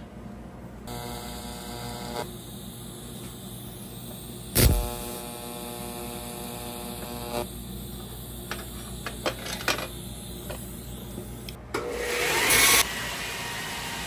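TIG welding a copper tube with twisted stranded copper wire as filler rod at about 80 to 100 amps: a steady buzzing hum with scattered clicks. There is one loud crack about four and a half seconds in and a brief louder hiss near the end.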